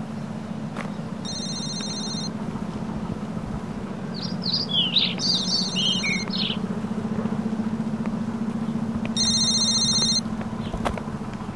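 A phone ringing: an electronic ring about a second long that repeats three times, about every four seconds. Birds chirp in the middle, over a steady low hum.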